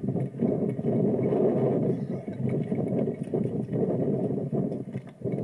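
Dirt bike engine revving as its rear wheel spins in a boggy mud track, heard muffled with little treble.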